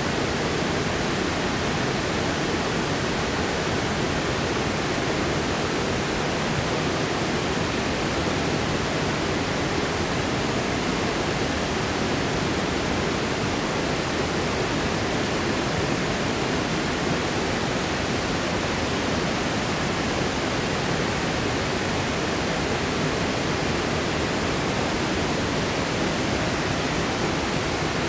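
Mountain river rushing steadily over rocks and pouring over a low concrete weir.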